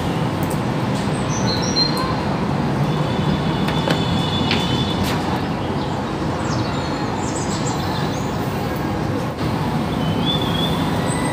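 Steady rumble of road traffic, with short high bird chirps a few times.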